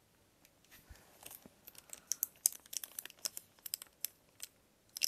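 Packaging crinkling and crackling as it is handled and pulled open by hand: an irregular run of short, sharp crackles that thickens about two seconds in.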